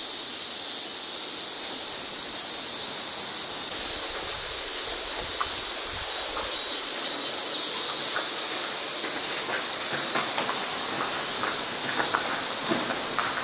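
A steady, shrill chorus of cicadas droning. In the last few seconds, footsteps crunch on a gravel floor.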